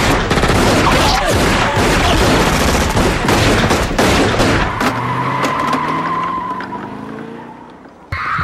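Drive-by shooting: a sudden, loud volley of rapid gunshots lasting about five seconds, then a car engine revving up with a squeal of tyres as it speeds off, fading near the end.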